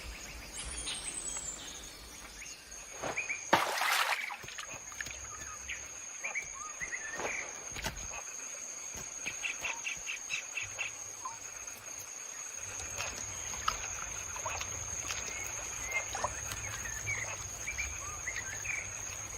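Tropical forest ambience: a steady high-pitched insect whine, scattered short bird chirps and a quick run of rapid pulsing calls. A short, loud burst of noise about three and a half seconds in.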